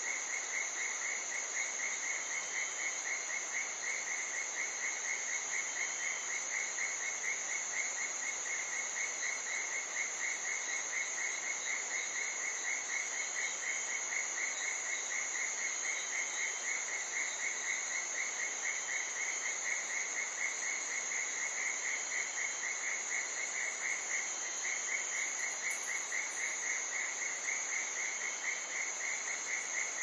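Night chorus of jungle insects: a steady high-pitched drone over a rapid, even pulsing trill, with faint short peeps every few seconds.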